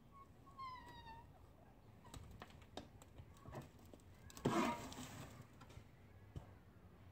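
Faint scrapes and knocks of a shovel working dirt into a wheelbarrow, with one louder scrape of dirt about four and a half seconds in. Under a second in, a short falling call from an animal.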